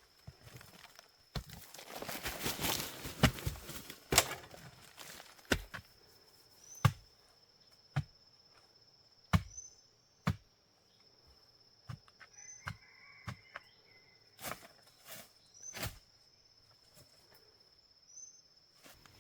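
A series of sharp knocks and thuds, roughly one every second or two, with a rustling scrape early on, over a faint steady high-pitched drone.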